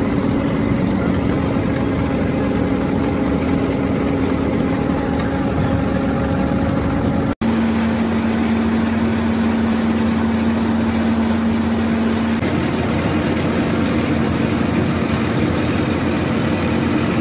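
Sunflower threshing machine running steadily, its engine and drive humming as seeds stream out of the discharge spout. The sound cuts out for an instant about seven seconds in, then the steady running carries on with a stronger hum.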